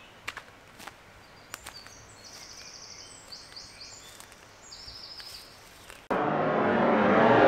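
Woodland ambience: birds singing in short repeated trills, with a few sharp snaps like twigs underfoot. About six seconds in, a sudden loud rushing sound effect cuts in and swells.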